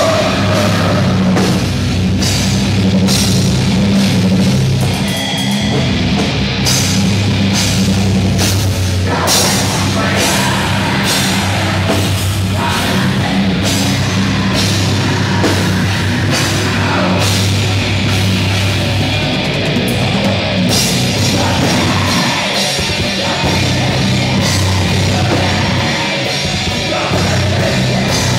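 Heavy metal band playing live: electric guitar, bass guitar and drum kit, loud and dense, with steady drum hits.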